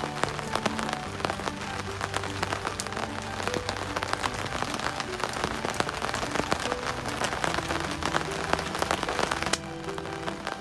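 Rain pattering, dense small drops over a steady hiss, under background music with held notes; the rain noise falls away near the end while the music goes on.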